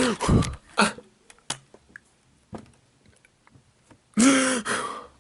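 A man's wordless vocal sounds, such as exasperated laughing or groaning: two short bursts near the start and a louder, longer one near the end. A few faint scattered clicks fall in the quiet between.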